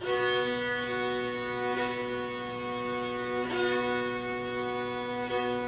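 Solo violin playing a slow klezmer-style folk melody in long held bowed notes, the notes changing about every two seconds.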